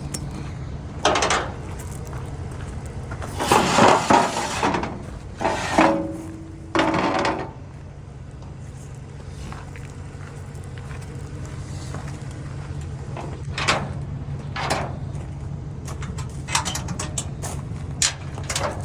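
An engine idling steadily under a string of loud metal clanks and bangs in the first half, then lighter clicks and knocks.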